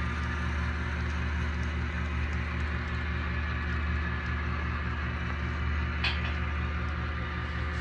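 HO-scale model ore train running along the track: a steady low hum with a fast regular pulsing, and one small click about six seconds in.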